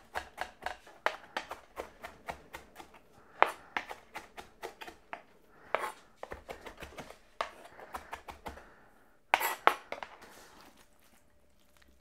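Chef's knife chopping parsley on a chopping board: quick knocks of the blade on the board, about four a second and uneven, with a few louder knocks just before they stop about ten seconds in.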